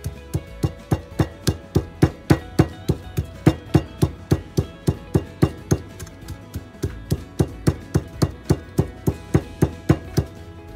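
Wooden pestle pounding salt, chili and lemon leaves in a ceramic bowl: sharp, even knocks about three or four a second, with a short break about two-thirds through, over background music.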